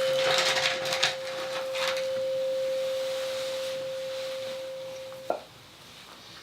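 A single pure tone near 500 Hz, slowly fading over about five seconds and then cut off with a click, with a few hissy rustles in the first couple of seconds.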